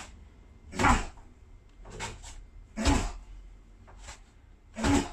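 Three hard strikes landing in a close-range combatives clinch, about two seconds apart, each with a sharp grunt or forceful exhale, plus a few lighter knocks and scuffs between them.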